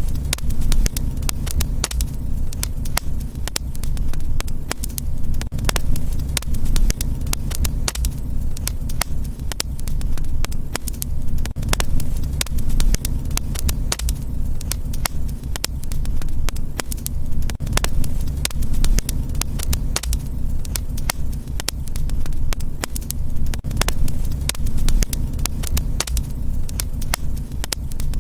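Fireplace fire crackling, with frequent irregular sharp pops and snaps over a steady low rumble.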